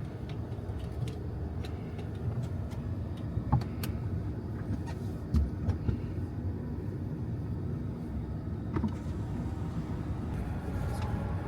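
Steady low rumble of a car, with scattered light clicks and taps.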